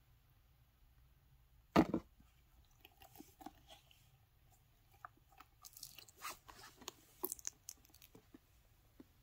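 Hands handling a glossy red zip pouch: one loud thump about two seconds in, then scattered light crinkles and taps as the pouch is turned over and its zipper pull is taken.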